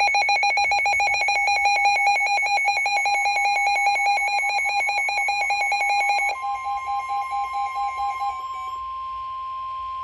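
Weather radio alert tones: a rapid, warbling electronic alarm beeping, which about six seconds in gives way to a single steady tone, the 1050 Hz NOAA Weather Radio warning alarm tone that precedes a severe thunderstorm warning.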